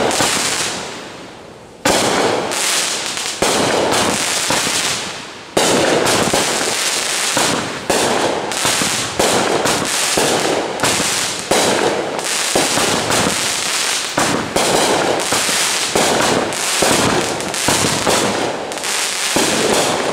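Aerial fireworks bursting overhead in a rapid string. Loud bangs come a couple of seconds apart at first, then about one or more a second from about six seconds in.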